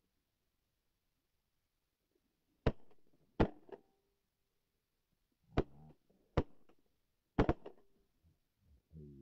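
A shotgun fired repeatedly at ducks flying overhead: about five sharp shots over some five seconds, coming in pairs less than a second apart, each followed by a short rolling echo.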